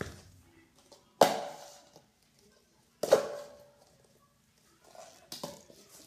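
Two sharp knocks about two seconds apart, each with a short ringing tail, followed by a few fainter clicks near the end.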